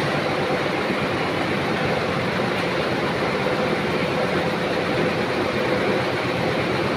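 Textile comber machine and the spinning-mill machinery around it running: dense, steady mechanical noise with a steady mid-pitched hum running through it.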